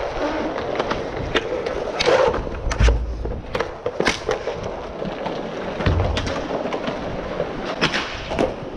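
Inline skate wheels rolling on a tiled rink floor, with frequent sharp clacks of hockey sticks striking the puck and the floor, and two dull thumps, about three and six seconds in.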